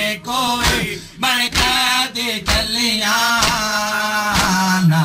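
Male voices singing a noha, a Shia mourning lament in Punjabi. Mourners' hands strike their chests (matam) in time with it, sharp slaps about twice a second.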